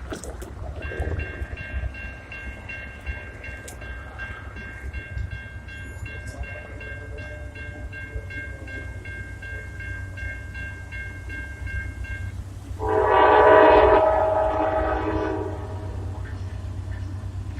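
Diesel freight locomotive rumbling, with a bell ringing steadily about twice a second for most of the stretch, then one long locomotive air horn blast of about two and a half seconds, the loudest sound.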